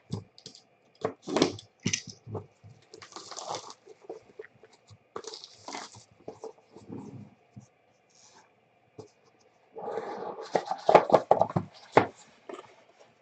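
Plastic shrink wrap being cut and torn off a trading-card box and crinkled, in scattered short scratchy rustles. A louder, denser stretch of crinkling comes near the end.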